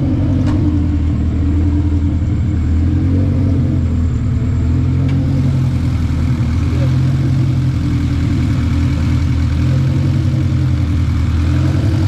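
Toyota 2ZZ-GE 1.8-litre four-cylinder engine in a Corolla AE100 idling steadily.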